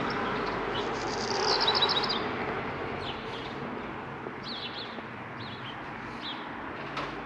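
Songbirds chirping: a quick run of high notes about a second in, then scattered short calls, over steady background noise.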